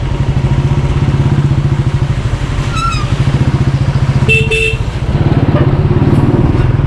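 Motorcycle engine running steadily on the move. A short horn note sounds near the middle, then a vehicle horn gives two short honks a little over four seconds in.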